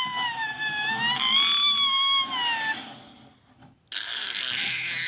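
A child's long, high-pitched excited scream, held for nearly three seconds with a slight rise and fall in pitch, then after a short pause a second loud yell.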